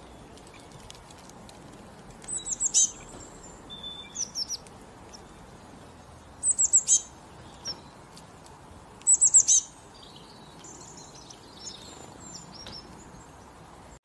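Songbird singing: a short phrase of quick, high, falling notes comes three times a few seconds apart, with fainter chirps between, over a steady hiss.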